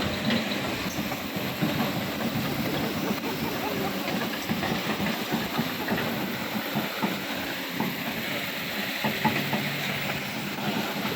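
Large excavator's diesel engine running steadily with a clattering, clanking rattle over a constant hiss of noise.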